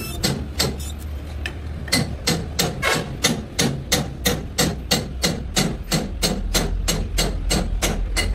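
Rapid, evenly spaced metallic knocks, about three a second, over the steady low hum of running workshop machinery.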